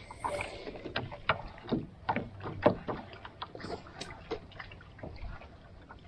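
Irregular light knocks and taps on a small Gheenoe boat on the water, about two a second, over a low steady background.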